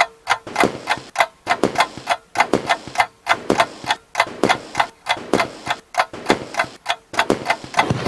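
Clock ticking sound effect: sharp, regular ticks at about two a second, counting down.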